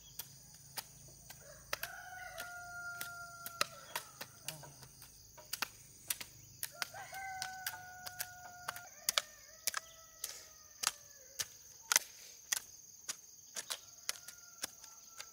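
Roosters crowing several times, each crow a long call held at one pitch and the last one fainter, over a steady high trilling of insects and a run of sharp, irregular knocks.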